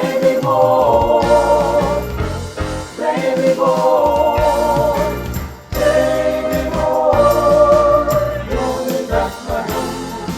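High school choir singing a gospel spiritual in long held notes with vibrato, phrase after phrase, with short breaks about three and six seconds in.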